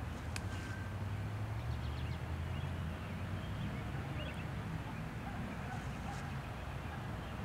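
Low, steady rumble of an approaching freight train's diesel locomotive heard from far off, with a few faint bird chirps over it.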